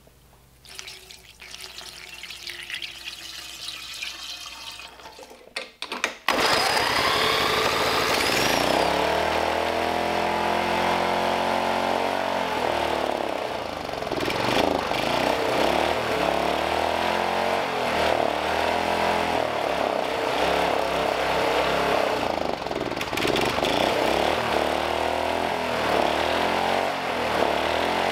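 Liquid alcohol poured from a glass bottle into a funnel on a small engine. About six seconds in, the small engine starts and runs on the alcohol vapours, choked with tape and foil over its non-adjustable carburetor, its speed rising and falling unevenly as it hunts.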